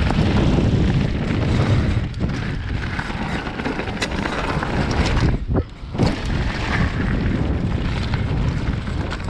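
Wind rushing over the microphone and tyres crunching over gravel as an e-mountain bike (Commencal Meta Power 29) rides a forest trail at speed, with a short lull about halfway through.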